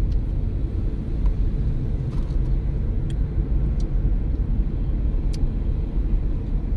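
Steady low road and tyre rumble inside the cabin of a 2007 Toyota Prius driving along a paved road, with a few faint clicks.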